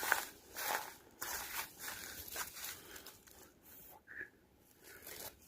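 Footsteps crunching, irregular and a few a second, fading toward the end.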